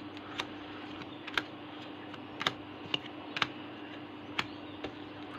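Trading cards being handled and sorted: a dozen or so sharp, scattered clicks and taps as the cards are flipped through and set down, over a faint steady hum.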